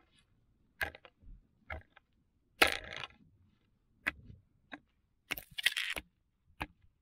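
A hand-forged steel ice spud bar chopping into lake ice: sharp, irregular strikes about once a second with the crunch of ice chipping away. The loudest strike comes a little under three seconds in, and a quick run of crunching strikes comes near the end.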